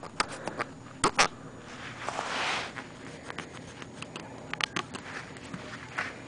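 Scratchy rubbing and small clicks as the cut end of a wooden clothespin piece is smoothed with a small hand-held abrasive tool to take off the sharp, splintery edge; one longer rasping stroke about two seconds in.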